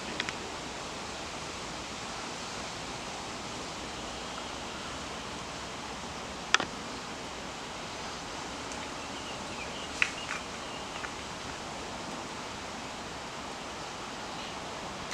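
Steady outdoor background hiss with a few sharp clicks, the loudest about six and a half seconds in and another about ten seconds in, with a few faint short high sounds around the second click.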